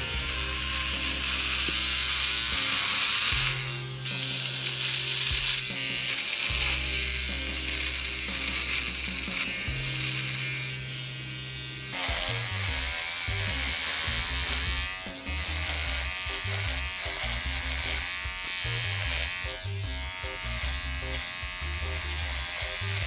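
Electric beard trimmers running as they cut through beard hair: a Philips OneBlade first, then from about halfway a conventional flat-blade trimmer. Background music with a bass line plays underneath.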